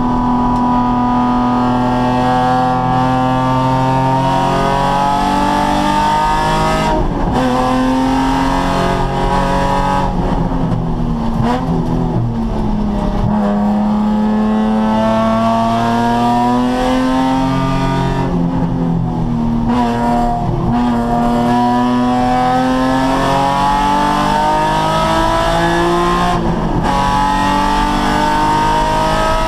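Nissan 350Z's 3.5-litre V6 being driven hard: the engine note climbs in pitch for several seconds at a time, then drops sharply before climbing again, several times over.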